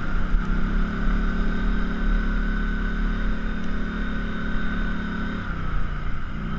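ATV engine running steadily while riding along a trail. It eases off to a lower pitch about five seconds in, then picks up again near the end.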